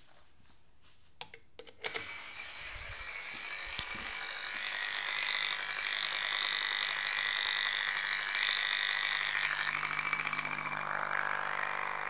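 An LPG injector electrovalve, fed from a transformer through a power diode, buzzing as its solenoid chatters open and shut many times a second while it is bench-cleaned in a jar of liquid. A few clicks come first, then the buzz starts suddenly about two seconds in and runs on steadily.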